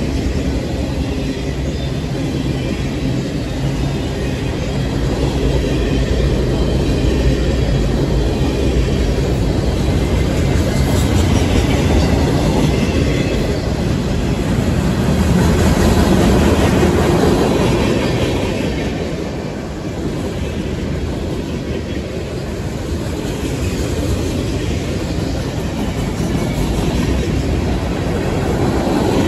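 CSX manifest freight train's cars rolling past on the rails: a steady rumble of steel wheels on track.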